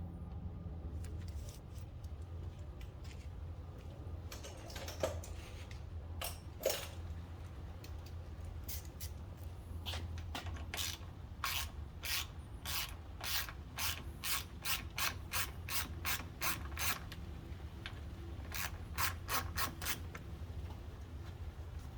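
Ratchet clicking in quick runs, about two to three clicks a second, as a T30 Torx fastener is backed out, after a couple of light knocks.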